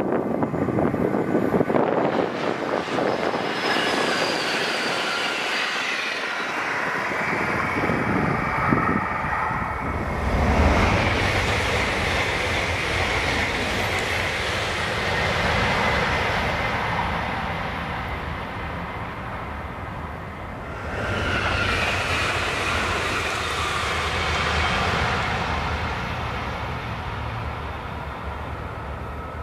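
High-speed electric passenger trains running past on a high-speed line, one pass after another: a steady rush of wheels on rail and air with a high electric whine that falls in pitch as a train goes by. The sound changes abruptly about ten seconds in and again about twenty-one seconds in, as one pass gives way to the next.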